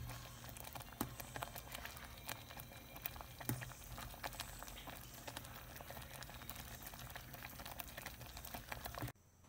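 Thick corn-and-coconut pudding simmering in a pot: a dense crackle of small bubbles popping that cuts off suddenly near the end.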